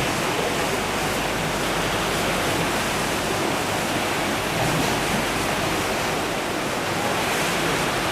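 Steady rushing of the River Cree in flood, a loud even roar of fast, high water.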